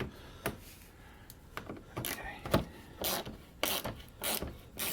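Ratchet wrench clicking in short back-and-forth strokes, tightening a mounting bolt of a headlight assembly. The strokes start about a second and a half in and come roughly every half second.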